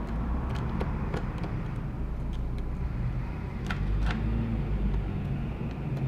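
Light clicks and ticks of a small Phillips screwdriver and tiny screws being worked out of an iPod touch's frame, over a steady low background rumble. Two clicks stand out about four seconds in.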